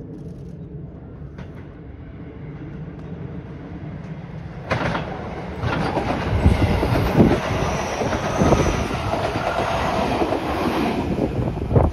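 Seibu 30000 series electric train departing and passing close by: a low rumble as it approaches, which grows suddenly louder about five seconds in, then the wheels clattering over the rail joints and points as the cars go past.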